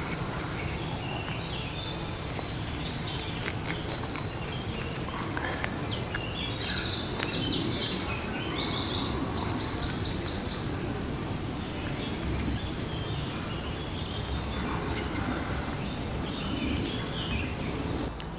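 A songbird singing a run of rapid, high trilled phrases from about five to eleven seconds in, with fainter chirps later, over a steady low background rumble.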